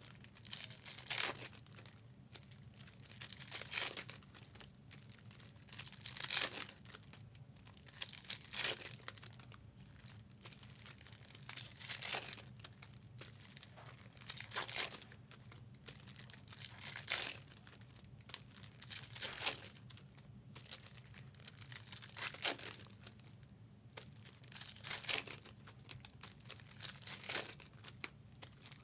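Foil trading-card pack wrappers crinkling and tearing open, a short burst roughly every two and a half seconds, over a faint steady low hum.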